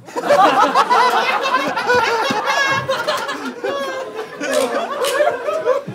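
A group of people laughing together at a joke, many voices overlapping with chuckles and higher-pitched laughs.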